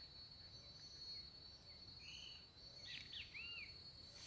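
Faint woodland ambience: a steady high-pitched insect drone, with a few short bird chirps about two seconds in and again around three seconds in.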